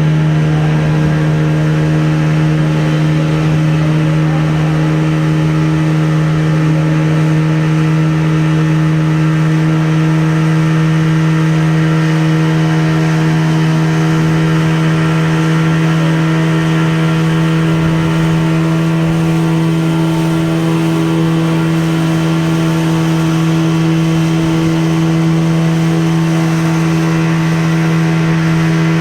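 Tour boat's motor running at a steady speed, a constant loud engine hum with a low droning tone.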